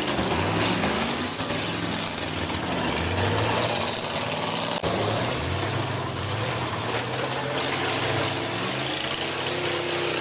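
Several school bus engines running and revving up and down together in a demolition derby, over a steady noisy background. One sharp click about halfway through.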